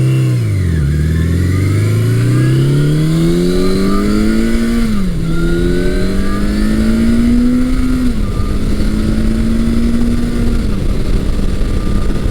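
1982 Suzuki GS750E's air-cooled inline-four engine heard while riding, with wind rush. It pulls hard through the gears: the pitch climbs, drops at an upshift about five seconds in and again about eight seconds in, then settles at a steady cruise. The clutch is holding under load and no longer slipping.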